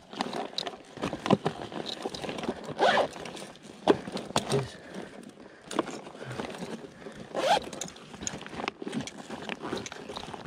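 Zipper of a fabric fishing backpack being pulled open and shut in several short strokes, with rustling and scraping as gear is rummaged through inside it.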